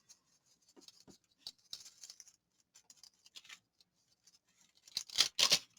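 Scissors cutting paper: faint scattered snips and paper rustles, then two or three louder snips about five seconds in.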